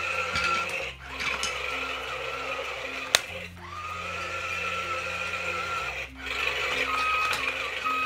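A simple electronic tune of short, evenly stepped notes with a steady high whine over it, as from a battery-powered toy; a sharp click about three seconds in.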